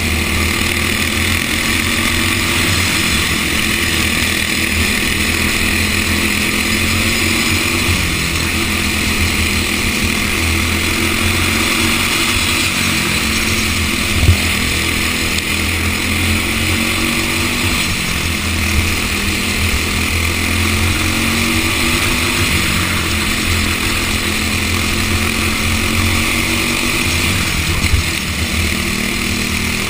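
Steady running noise of a motor vehicle, with one sharp knock about halfway through.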